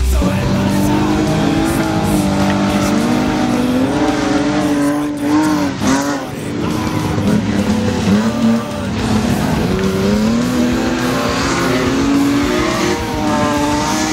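Several stock-car engines revving hard on a dirt track, their pitch rising and falling again and again as the cars accelerate and lift off, overlapping one another.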